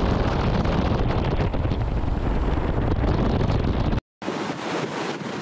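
Wind buffeting the microphone, a heavy low rumble over a steady hiss. After a brief cut about four seconds in, breaking ocean surf as a softer, steady wash.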